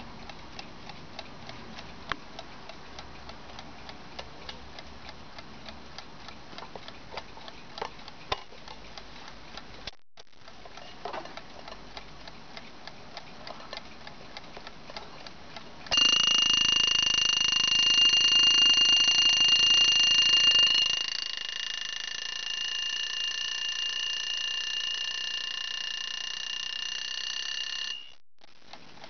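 Peter mechanical alarm clock ticking, then just past halfway its alarm goes off with a loud, steady, high ringing. The ringing drops in loudness about five seconds later and cuts off suddenly near the end as the shut-off button on top is pressed, and the ticking carries on.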